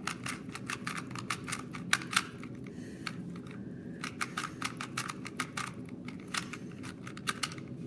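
Rubik's-type puzzle cube being turned fast by hand: quick runs of sharp plastic clicks as the layers snap round, with short pauses between bursts.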